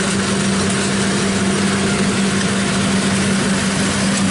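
Kubota DC60 combine harvester's diesel engine running steadily under harvesting load: a constant, even hum under a wide wash of machine noise.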